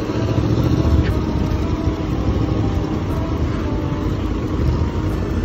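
Steady rumble of street traffic, vehicle engines running on the road.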